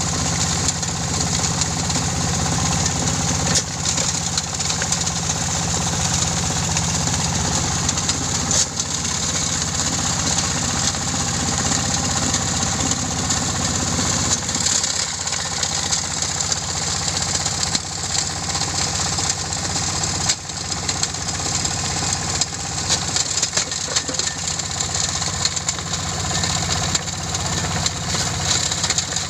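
Stone-grinding machine for gravel running steadily, a motor drone under a constant hiss and fine clatter. A little past halfway, part of the lower rumble eases off.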